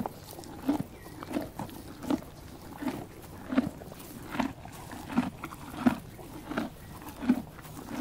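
Horse grazing: tearing and chewing grass in a steady rhythm, about one crunching bite every three-quarters of a second.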